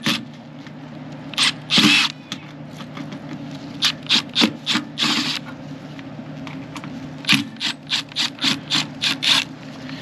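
Cordless driver backing out the screws of a mini split outdoor unit's top cover, with metal scraping: a series of short bursts, a couple of longer ones early and a quicker run of about three a second in the last few seconds.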